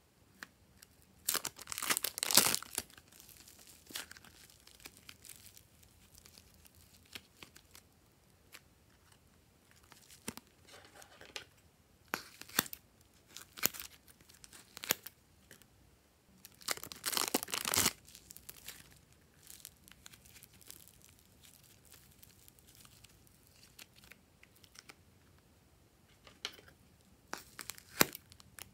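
Plastic wrappers of soft modelling-clay packs crinkling and tearing, with sharp scissor snips cutting them open. There are two longer rustling tears, one about a second in and one around the middle, and scattered single snips between them.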